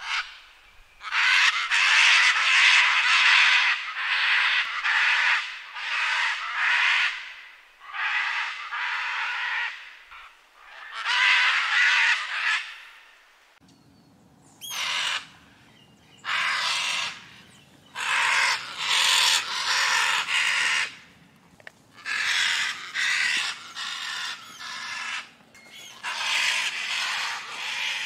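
Scarlet macaw calling: a run of harsh, raspy squawks, each one to three seconds long, with short pauses between them.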